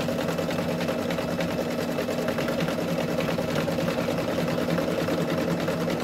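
Brother 6700D Quattro 2 embroidery machine stitching steadily: a fast, even run of needle strokes over a steady motor hum as it sews a red rayon bean stitch, going back and forth over the same line.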